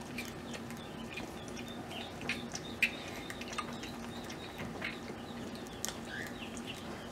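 Baby yellow-bellied marmot suckling milk from a syringe nipple: wet sucking and smacking clicks at an irregular pace, with short high squeaks.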